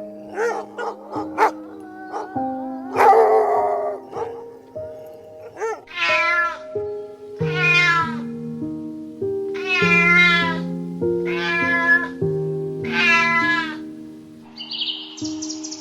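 A cat meowing: a few short calls, then four long, drawn-out meows about two seconds apart, over background music with a simple melody.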